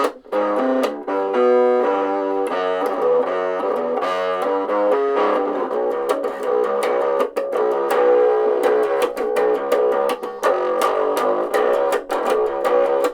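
Electric bass guitar played through a small portable amp, a riff of changing notes that sounds thin, with little deep low end and plainly audible plucking clicks.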